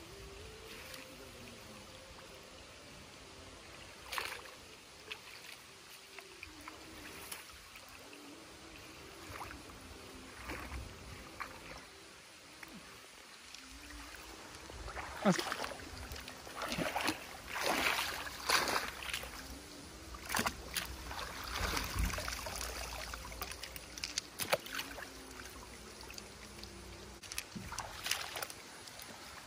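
Shallow water sloshing, splashing and dripping as a cast net is hauled in and gathered up by hand, with a run of louder splashes in the middle stretch.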